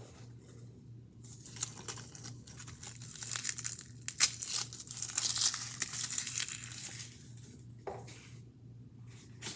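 Dry crinkling and tearing of papery or plastic wrapping being handled and pulled apart, building up about a second in, busiest in the middle and dying away near the end.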